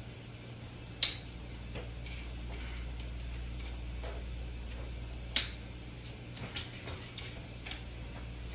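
Plastic mesh clips of a Snoo bassinet snapping into place on the frame: two sharp snaps about a second in and past five seconds, with a few lighter clicks later as the remaining clips are pressed home.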